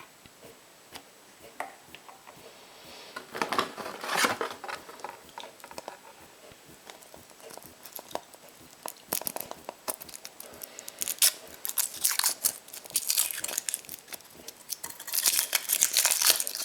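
Wrapper of a chocolate surprise egg crinkling and tearing as it is unwrapped by hand, in irregular crackly bursts with quieter pauses between, busiest near the end.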